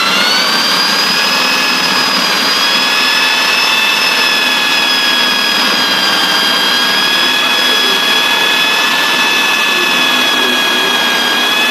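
Electric drill running a jigsaw adapter: a steady, high motor whine that picks up speed slightly at the start and then holds.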